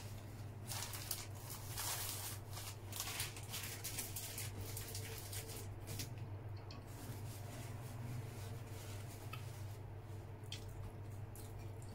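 Close-up mouth sounds of a person biting into and chewing a soft cream bun: soft wet squishing and smacking, busiest in the first half and thinning out later.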